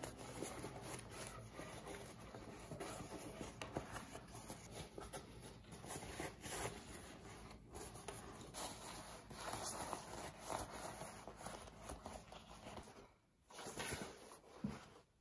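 Stiff Gore-Tex shell fabric rustling and crinkling as hands handle and work a freshly sewn bag, in irregular scrapes, dropping away briefly near the end.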